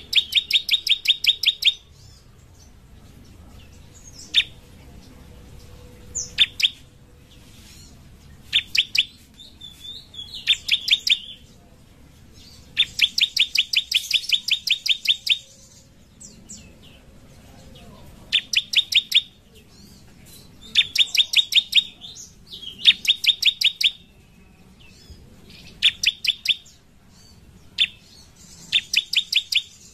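Bar-winged prinia (ciblek) singing its rapid drilling trill: bursts of sharp ticking notes at about eight a second, each burst a second or two long, repeated after short pauses, with a few single high upslurred notes between the bursts.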